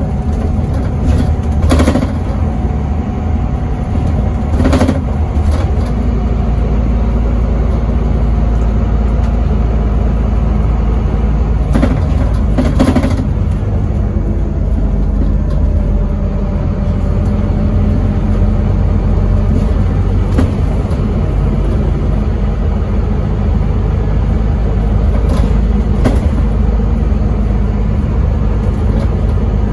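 Scania N270UD double-decker bus's nine-litre five-cylinder diesel running steadily under way, heard from inside on the upper deck as a low drone. Short knocks and rattles come through a few times.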